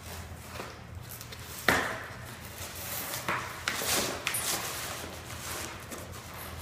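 Two Norfolk terriers ripping and nosing into cardboard boxes on a hard floor: rustling and tearing of cardboard and packaging, with a few sharp knocks, the loudest a little under two seconds in.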